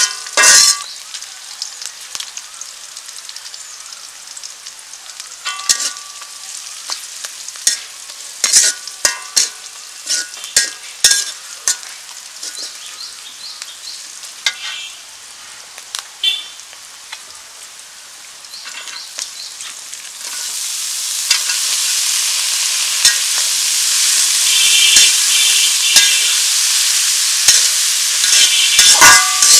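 Metal spatula scraping and clacking against an aluminium wok as sliced onions and green chilies fry in oil with a light sizzle. About twenty seconds in, chopped bitter gourd goes into the hot oil and a much louder, steady sizzle takes over, with the spatula still scraping through it.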